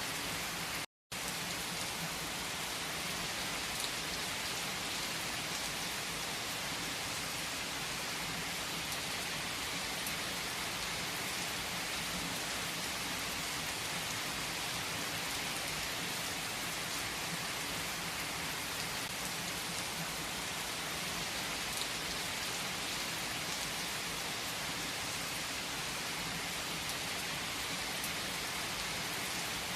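Steady, even rain falling on a surface, with an occasional faint click. The sound drops out completely for a split second about a second in.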